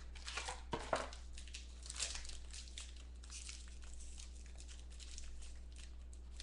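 Packaging crinkling and rustling as a trading-card mini box is opened and its cards handled, with irregular crackles that are busiest in the first two seconds and fainter after.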